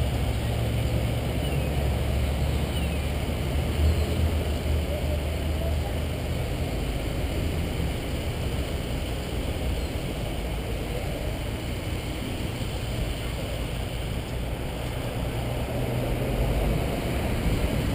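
Vehicles of a police procession driving past on the road, a steady rumble of engines and tyres that is louder for the first few seconds, eases off, then swells again near the end.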